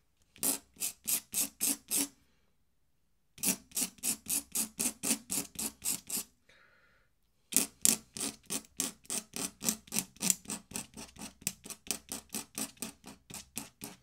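Dip pen nib scratching across paper in quick, evenly repeated strokes, about four a second, hatching in bristly ink lines. The strokes come in three runs, broken by short pauses about two seconds in and halfway through.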